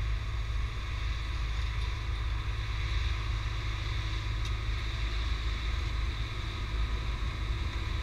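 Concrete paving machine's engine running steadily: a constant low rumble with a steady higher hum above it.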